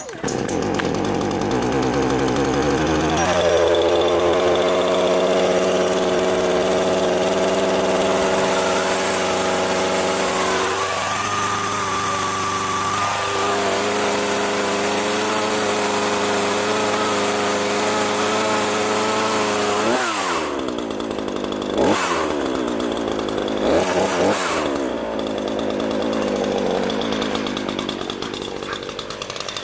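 Chainsaw running at high speed with a steady whine. Its pitch climbs a few seconds in and shifts briefly in the middle. About two-thirds of the way through it falls away, then gives two short bursts of speed and settles to a lower, steady run.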